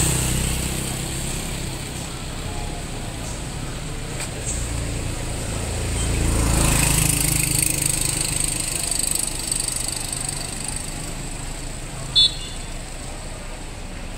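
Busy street ambience with a motor vehicle's engine running past, swelling and fading midway. A single short, sharp high-pitched sound cuts in briefly near the end.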